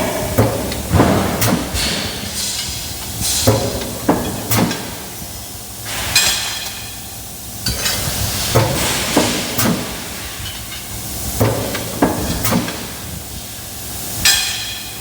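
A working machine giving irregular knocks every second or two, with stretches of hissing in between.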